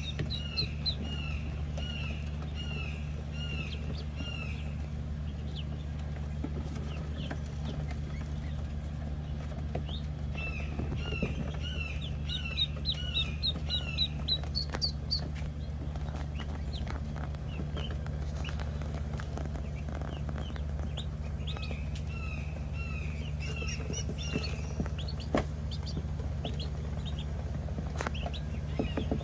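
Penciled call ducklings peeping: runs of short, high, arched peeps, two or three a second, coming in bursts with quieter stretches between, over a steady low hum.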